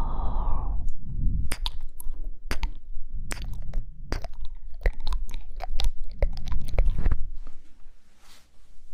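Close-miked ASMR mouth sounds: a rapid, irregular string of wet tongue and lip clicks and smacks over a low rumble, dying away about seven seconds in.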